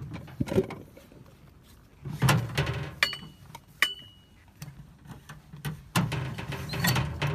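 Mortar rounds being handled at their ammunition cans: cardboard packing tubes slide and knock. Two sharp metallic clinks, about three and four seconds in, each ring briefly.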